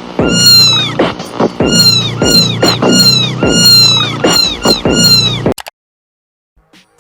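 A kitten meowing loudly over and over in a fast run of short cries, each rising and then falling in pitch, cutting off abruptly about five and a half seconds in.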